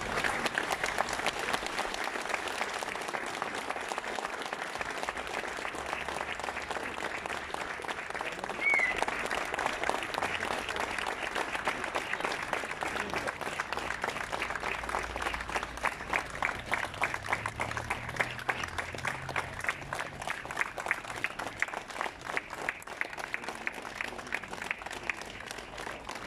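A crowd of mourners gives a long farewell ovation: steady applause from many hands throughout. A brief high chirp comes about nine seconds in.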